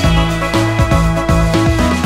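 Background music with a steady beat and a bass line stepping from note to note.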